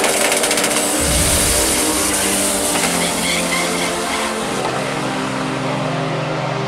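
Two drag cars, a Fox-body Mustang and a Camaro, launching side by side from the starting line and accelerating hard at full throttle, their engines running loud.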